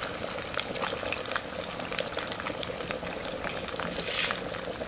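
Small boneless chicken pieces deep-frying in hot oil in a kadai on high heat, a steady sizzle full of small crackles and pops, with a louder hiss about four seconds in.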